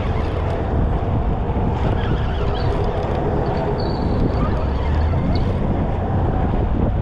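Wind buffeting the microphone in a steady low rumble, with a spinning fishing reel being cranked close by.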